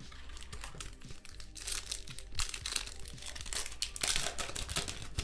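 Foil wrapper of a Topps Chrome trading-card pack crinkling and tearing as it is pulled open by hand, loudest from about a second and a half in.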